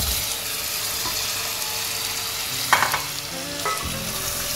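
Oil-fried red spice masala sizzling in a pot as boiled potatoes drop in with a soft thump and are stirred through with a wooden spoon. A couple of sharp clatters come about three seconds in.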